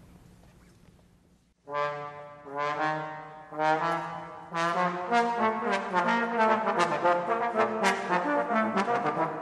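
Trio of trombones beginning a piece. After a quiet moment, three held chords enter about two, three and four seconds in, then a quicker rhythmic passage from about five seconds in.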